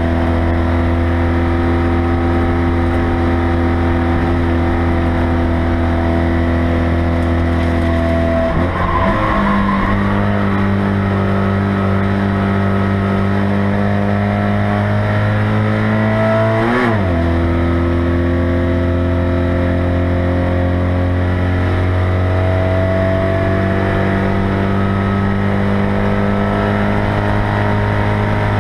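Citroën 2CV race car's air-cooled flat-twin engine running hard at high revs, heard from inside the stripped cabin. The engine note drops about nine seconds in, slowly climbs, then shifts sharply about seventeen seconds in before settling higher again.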